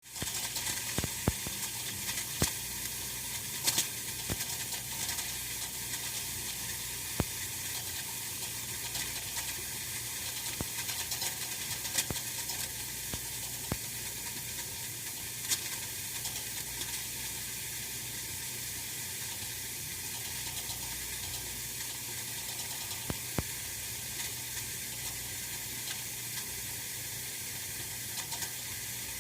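Oil-filled radiator heater running: a steady high hiss with irregular sharp ticks and crackles, more frequent in the first half.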